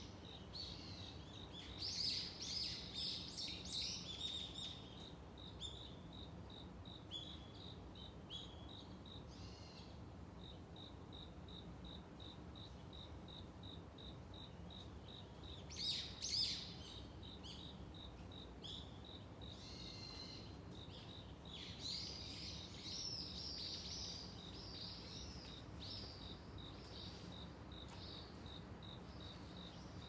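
Small birds twittering in short bursts, loudest about two seconds in, around the middle and again toward the end, over an insect's steady, evenly pulsed high chirping that runs without a break.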